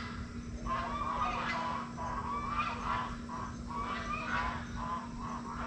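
Farm fowl calling in a run of short repeated calls, about two a second.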